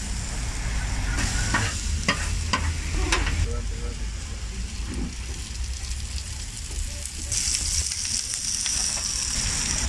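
Sliced white onions sizzling on a hot flat-top griddle, with a few sharp knocks in the first three seconds as they are tipped off a board onto the metal. The sizzle grows louder and brighter about seven seconds in.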